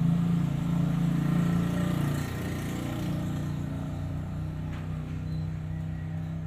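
A motor vehicle engine running steadily, with a low hum that is loudest for the first two seconds and then eases off slightly.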